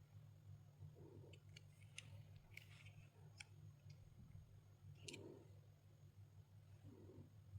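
Near silence: a steady low hum with a few faint scattered clicks and soft muffled knocks.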